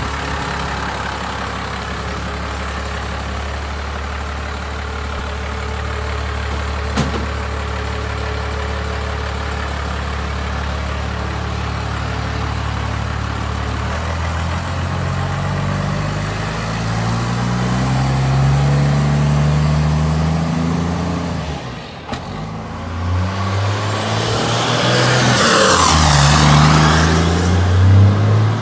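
Swapped-in 12-valve Cummins inline-six turbo diesel with a P-pump, in a 1972 Ford F100, idling steadily and then pulling away and accelerating, its note rising. It dips briefly about three-quarters of the way through, then rises again louder, with a hiss near the end.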